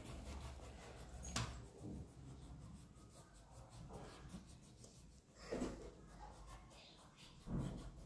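Coloured pencil scratching faintly on paper as an area is coloured in. A sharp tick about a second and a half in, and two brief louder sounds, one past the middle and one near the end.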